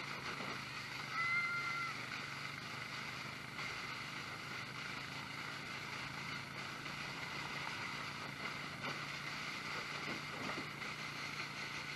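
A vehicle engine running steadily, with a short high tone about a second in.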